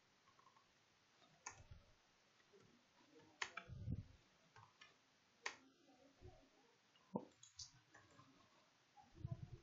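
Near silence broken by a few faint, sharp computer keyboard and mouse clicks, spaced a second or two apart, with a few soft low thumps between them.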